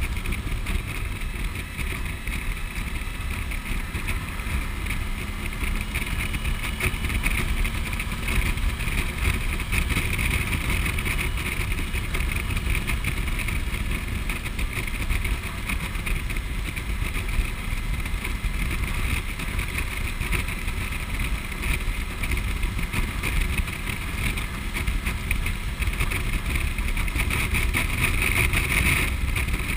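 Motorcycle cruising at a steady speed: an even engine drone under rushing wind, with no gear changes or revving.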